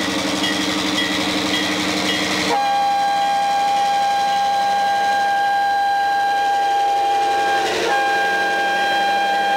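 Alabama Railroad's ex-Chessie System Geep diesel locomotive running, a ringing repeating about twice a second, then about two and a half seconds in its horn comes on and is held, with a brief sag in pitch near the end. The horn is sour-sounding, 'enough to curdle milk'.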